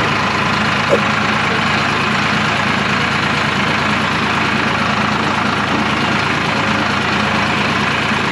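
A vehicle engine running steadily, with one short click about a second in.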